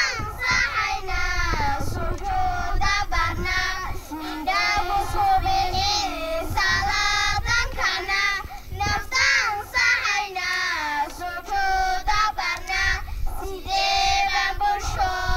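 Group of young girls singing an Islamic nasheed together, with long held notes.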